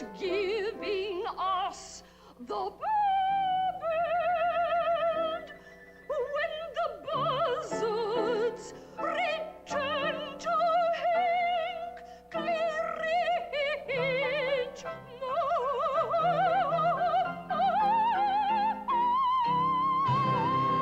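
A woman singing in an exaggerated operatic style with wide vibrato over instrumental accompaniment, in short phrases, climbing to a long held high note near the end as the accompaniment swells.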